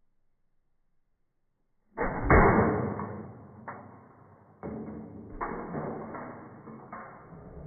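Dramatic percussion music: after about two seconds of silence, a run of heavy drum hits starts abruptly, loudest at the first strikes, each ringing out before the next lands about once a second.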